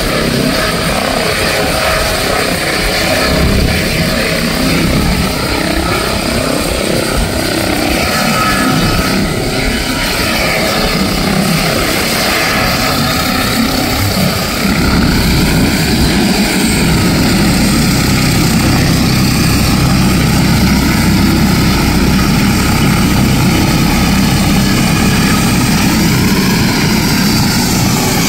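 Helicopter with a shrouded fenestron tail rotor running at close range as it hovers low and settles onto its skids: a steady rotor and turbine noise. The low rotor sound grows a little louder and steadier about halfway through.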